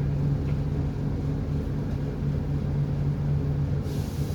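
Boat engine running steadily with a low, even drone, and a short hiss near the end.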